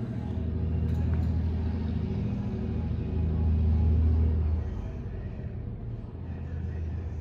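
Twin piston engines and propellers of a Britten-Norman Islander running: a steady low drone that swells about three seconds in and drops back about a second and a half later.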